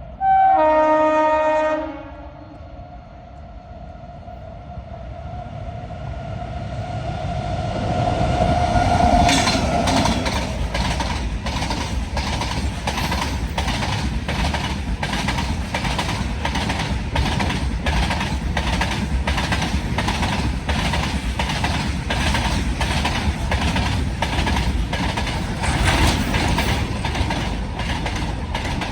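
WAG9 electric locomotive's horn sounds one loud blast of about a second and a half. The locomotive then comes closer and passes, and its train follows with a steady, evenly repeating clickety-clack of wheels over rail joints.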